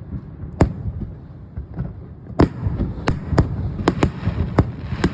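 Fireworks bursting in the sky: a single bang, then a quickening run of about eight sharp bangs over a low rumble.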